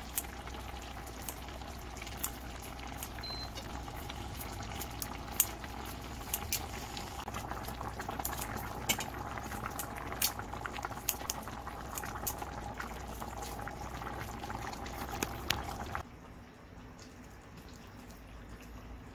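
Kimchi stew bubbling at a simmer in a pan, a steady bubbling with many small sharp pops and clicks over a faint steady hum. About sixteen seconds in the sound cuts off to a much quieter background.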